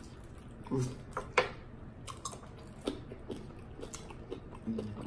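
Chewing and biting on chicken wings, gnawing the gristle off the bone, with a string of sharp wet mouth clicks; the loudest click comes about one and a half seconds in.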